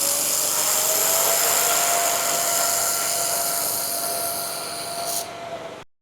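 Handheld laser welder welding stainless steel: a steady hissing crackle with a faint whine that rises a little at first. The hiss stops about five seconds in and the whole sound cuts off just before six seconds.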